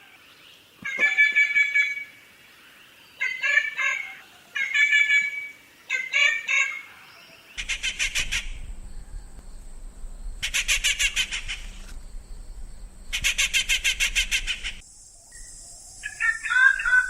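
Treepie calls from several recordings in turn: short groups of harsh, pitched calls with gaps between, then three rapid rattles of about a second each, and near the end another call over a steady hiss.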